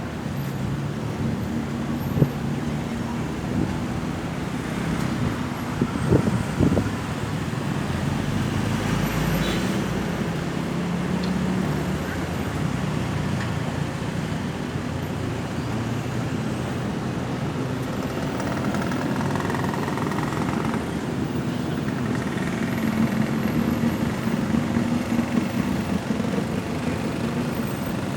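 Road traffic: a steady wash of passing vehicles and engines, with a few short sharp knocks about two and six seconds in.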